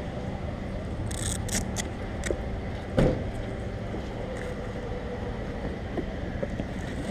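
Steady low rumble of background traffic. Over it come short crackly rustles and clicks of a saddlebag and its straps being handled on the motorcycle seat, and one sharp knock about three seconds in.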